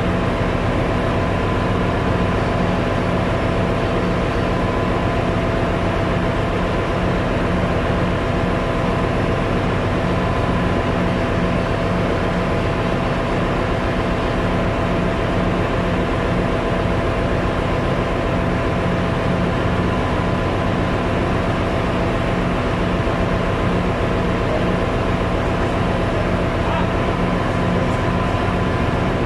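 Ship's engine-room machinery running steadily and loudly, a dense drone with a few constant hum tones. It comes from the auxiliary plant, such as generators and fans; the main diesel engine itself is stopped with its crankcase doors open for inspection.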